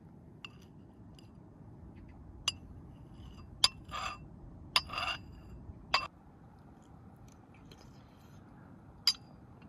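A ceramic soup spoon clinking against a porcelain bowl, about five sharp clinks spread unevenly, with two short noisy sounds from the spoon and bowl in the middle of the run.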